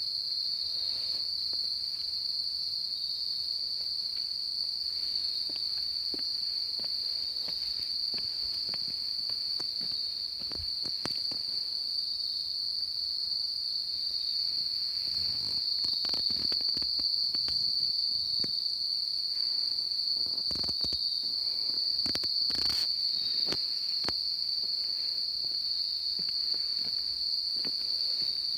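Loud, steady chorus of insects calling on one unbroken high pitch, with a few faint knocks scattered through it.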